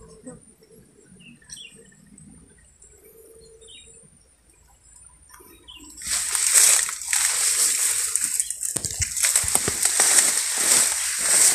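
Leaves, grass and stems rustling and crackling loudly against the camera as someone pushes through dense undergrowth, starting suddenly about six seconds in. Before that, near quiet with a few faint bird chirps.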